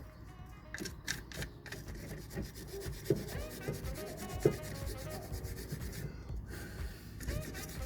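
Irregular rubbing and scraping of metal brake parts being worked by hand, with a few sharp clicks about a second in and a couple of light knocks later.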